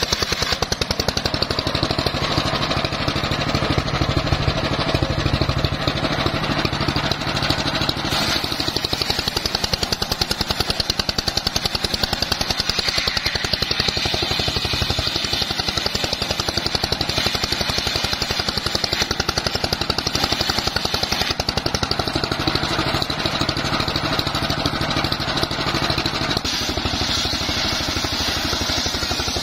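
Homemade circular table saw ripping teak into rafters, with its drive engine running steadily on a fast, even pulsing beat under the blade's cutting noise.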